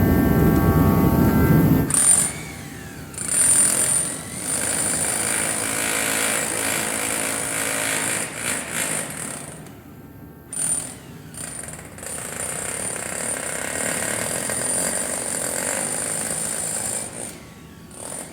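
Jackhammer running in long bursts, stopping briefly several times. A loud low rumble is heard for the first two seconds and then cuts off.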